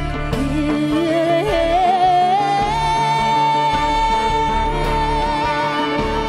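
Electric violin playing a rising melody that settles about two and a half seconds in on a long held high note with vibrato, over a worship band's sustained keyboard and bass backing.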